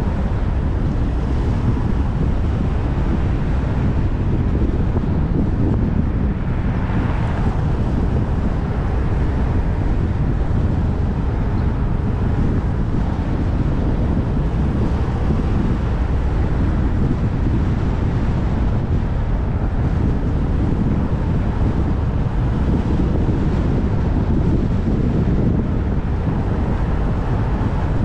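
Steady low rumble of wind on the microphone mixed with street traffic noise, with a brief rise in hiss about seven seconds in.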